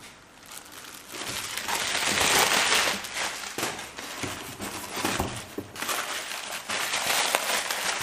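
Plastic packaging crinkling and rustling while parts are handled and lifted out of a cardboard box, irregular and loudest about two to three seconds in, with a few light knocks.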